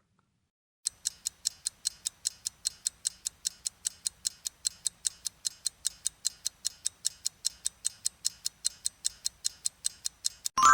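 Countdown timer sound effect ticking steadily, about four ticks a second, ending in a ding as time runs out.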